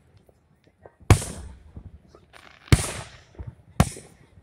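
Aerial firework shells bursting: three sharp booms, about a second in, past the middle, and near the end, the first two trailing off in a long rolling echo.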